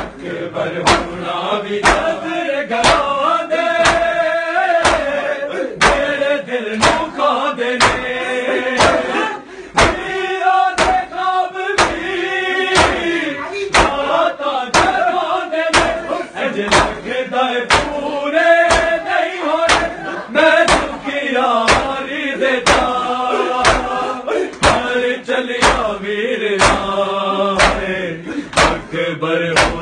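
Group of men chanting a Shia noha (mourning lament) together, with hands slapping bare chests in matam at a steady beat of about three slaps every two seconds.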